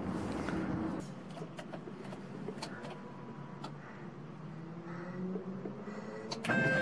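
Volkswagen Kombi's engine being started from the driver's seat: a quiet stretch with a few light clicks and a faint hum with the engine off, then about six and a half seconds in the starter cranks with a pitched whine and the engine begins to catch, the sound suddenly getting much louder.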